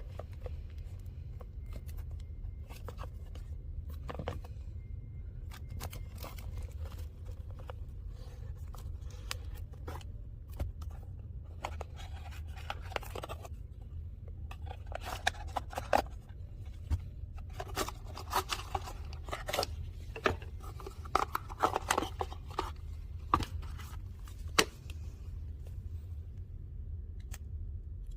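A smartwatch's packaging being opened and handled: scattered clicks, scrapes and rustles, busiest in the second half, over a steady low hum.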